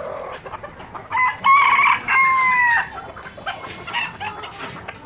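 A rooster crows once, about a second in: a loud call of under two seconds in two parts, its pitch dropping slightly at the end. Other chickens cluck around it.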